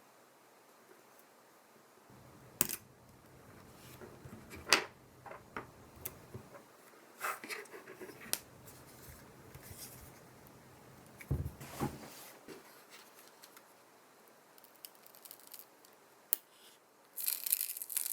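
Scattered small clicks, taps and short scrapes of tools and parts being handled while an iPhone 7 is worked on for a battery replacement, with a duller knock partway through and a busy patch of rustling and clicking near the end.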